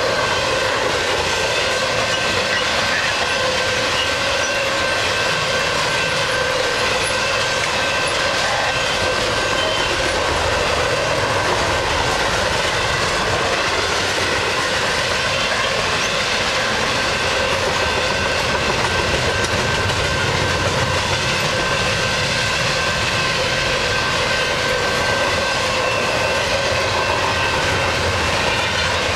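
Intermodal freight train of double-stacked container and trailer cars rolling steadily past, with continuous wheel-on-rail rumble and clatter. A thin, steady high tone runs through it the whole time.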